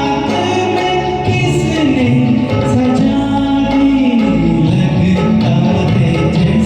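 Karaoke performance of a Hindi film duet: a voice singing over a recorded backing track of instruments, with the pitch gliding and bending through the melody.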